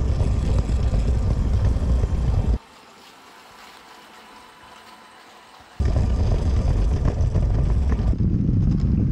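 Heavy rumble and rattle of a camera riding on a motorized Lego train rolling over plastic track. It drops to a faint hiss for about three seconds in the middle, then the rumble returns.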